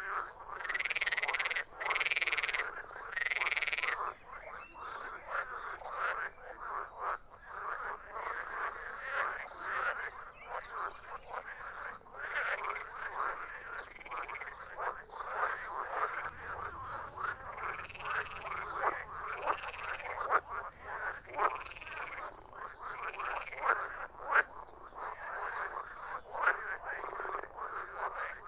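A chorus of frogs croaking over one another in a dense stream of short croaks. Three long, louder calls stand out in the first few seconds, and several more come in the middle.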